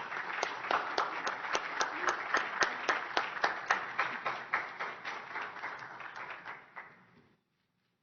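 Audience applauding, with sharp individual claps standing out, dying away about seven seconds in.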